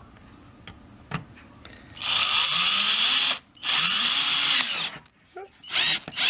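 Cordless drill driving a 1 5/8-inch deck screw through layers of wood, in two runs of about a second and a half each, the motor pitch rising and then falling in each, followed by a short burst near the end.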